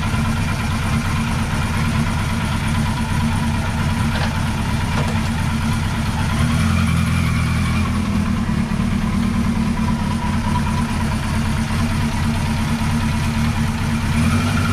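Air-cooled inline-four Kawasaki KZ900 engine idling steadily through a quiet baffled aftermarket muffler, running a little louder from about six seconds in.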